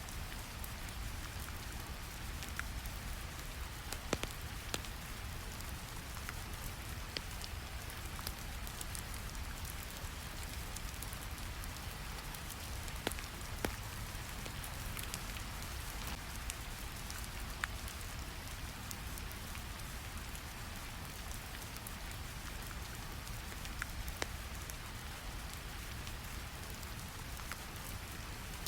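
Steady rain over a deep, even brown-noise rumble, with scattered sharp crackles of a wood fire every second or two.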